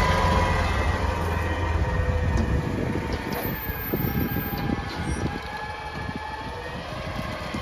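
Mack LR garbage truck with a McNeilus rear-loader body running, a steady high whine over its engine; the engine's low rumble drops away about two and a half seconds in, leaving the whine and a few light knocks.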